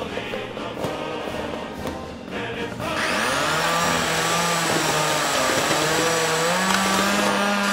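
Angle grinder running against metal and throwing sparks, setting in sharply about three seconds in, over background music.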